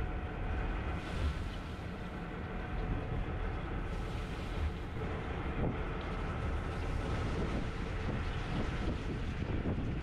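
A sportfishing boat's engine running steadily, a low rumble under wind noise on the microphone.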